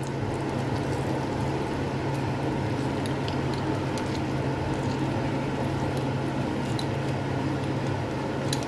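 Pizza cutter wheel rolling through a baked cheese pizza in a metal pan, with soft squishing and a few faint clicks over a steady low hum.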